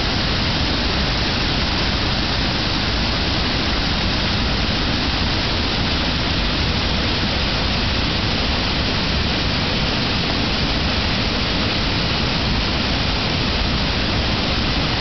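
Steady rushing roar of a wide, low river waterfall, the Venta's spring flow pouring over the rapid, with no change throughout.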